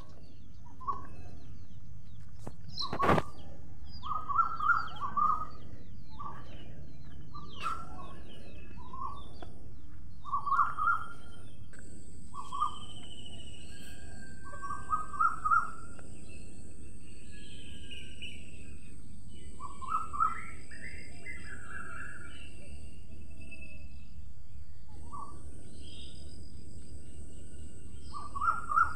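Short bird calls in quick clusters of two to four notes, repeating every second or two over steady background noise, with a single sharp knock about three seconds in.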